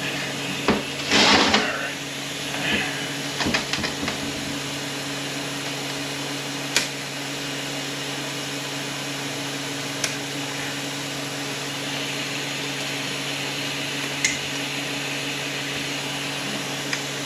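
Sharp metallic clicks and a brief scraping clatter about a second in, from snap-ring pliers and steel parts as a snap ring is worked out of an automatic transmission's planetary; the ring had been fitted upside down. A steady electric hum runs underneath.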